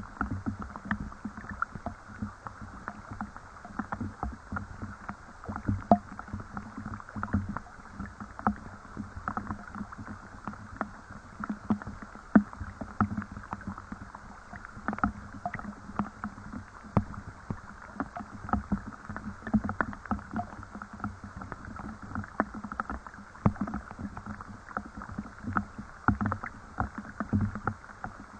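Rain falling, heard as many irregular drips and plops, several a second, over a steady patter.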